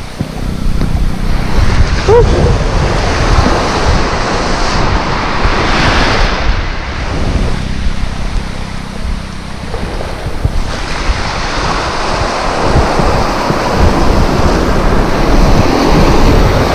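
Small surf breaking and washing up a sandy beach, the hiss of foam rising and falling with each wave, with wind buffeting the microphone.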